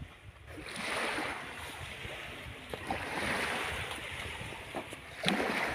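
Small waves washing onto a sandy beach, swelling about a second in and again around three seconds, with wind on the microphone.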